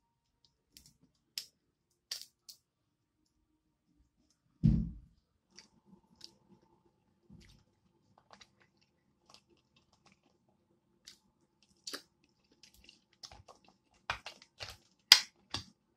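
Sparse clicks and crackles of shellfish shell, baby king crab among it, being picked apart by hand, with chewing and mouth sounds between them. A brief low sound comes about five seconds in, and a cluster of sharper cracks comes near the end, the loudest of them in the last second.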